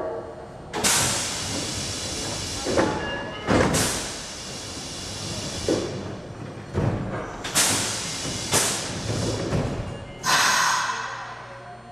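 Nagoya Municipal Subway 2000 series train standing at the platform during its pre-service inspection, giving off a series of sudden hissing bursts, about nine in all, each fading over a second or so.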